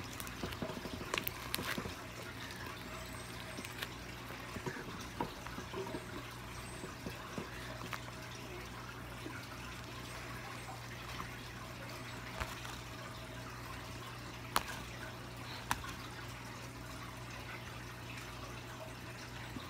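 Slime being stretched and kneaded by hand, giving scattered small sticky clicks and crackles, a few louder pops among them, over a steady low hum.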